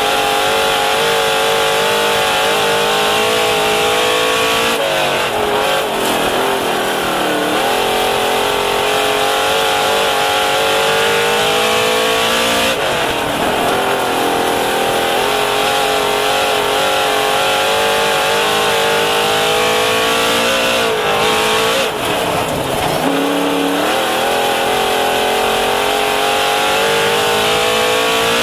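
Dirt modified race car's V8 engine heard from inside the car at racing speed, the pitch climbing steadily down each straight and dropping off as the driver lifts for each turn, about every eight seconds.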